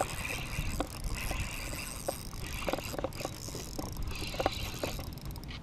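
Spinning reel being cranked in short spells while a hooked fish is played, with scattered light clicks and a low rumble of wind on the microphone.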